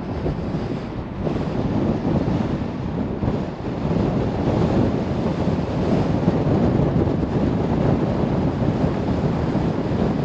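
Steady rushing road and wind noise inside a moving car with the windows up, growing louder about four seconds in.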